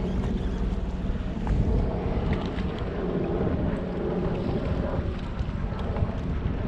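Wind buffeting the microphone on an open fishing boat: a steady low rumble with a few faint light ticks scattered through it.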